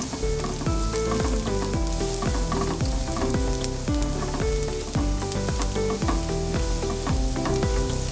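Minced garlic sizzling in hot oil in a pan, under background music with steady held notes and a regular beat.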